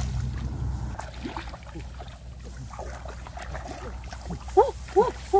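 Shallow muddy paddy water sloshing and rice stalks rustling as people wade and feel through the plants by hand, with a low wind rumble on the microphone in the first second. A few short, high voice-like sounds come near the end.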